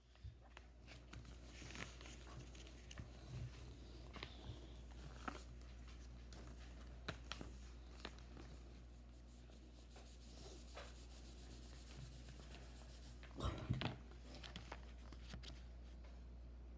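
Lego set packaging, plastic parts bags and the paper instruction booklet being handled: soft crinkling and rustling with scattered light taps, and a brief louder burst of crinkles about three-quarters of the way in, over a steady low hum.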